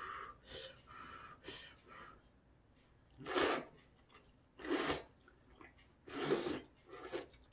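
A person slurping thick udon noodles. There are four loud, short slurps from about three seconds in, with only softer sounds before them.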